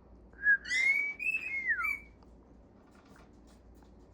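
A pet bird whistling a short phrase of a few notes in the first two seconds, the last note sliding down.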